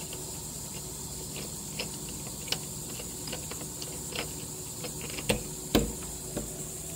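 Steady high-pitched drone of insects, with scattered light clicks and taps and two louder knocks a little after five seconds in, the second with a low thump.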